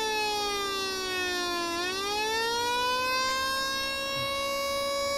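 Electronic siren from a hobby sound-effect kit, played through an amplifier. A buzzy, many-overtone tone glides down in pitch for about two seconds, rises back up, then holds steady. The fall in pitch comes as the circuit's 100 µF timing capacitor discharges and the rise as it charges, driven by an astable multivibrator.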